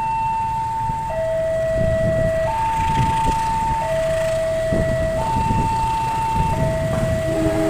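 Railway level-crossing warning alarm alternating between a high and a low tone, each held about a second and a half. Under it is the low rumble of the approaching CC 201 diesel-electric locomotive, growing from about two seconds in. A lower, quieter tone joins near the end.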